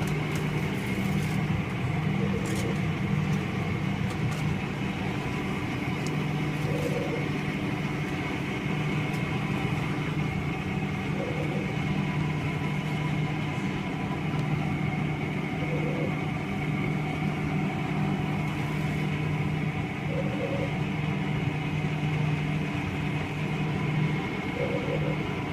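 Beer cooler's refrigeration machinery running with a steady hum, broken by short burps that recur about every four and a half seconds, six times.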